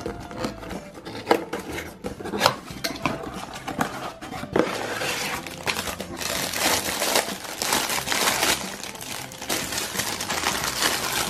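Hands opening a cardboard box with scattered clicks and knocks, then a thin clear plastic bag crinkling steadily for several seconds as the packed contents are handled.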